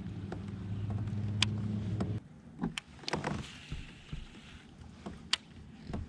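A kayak's drive hums steadily at a low pitch and stops about two seconds in. Scattered sharp clicks and knocks of gear against the hull follow.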